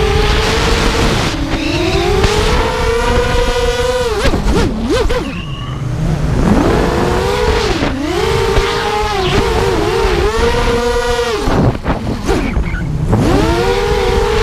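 Racing quadcopter's four DYS MT2206 2300kv brushless motors and 5045 props whining, the pitch swooping up and down with the throttle and dropping away twice, about four seconds in and again near twelve seconds, as the throttle is chopped. Heard from the GoPro on the frame, with wind rushing past.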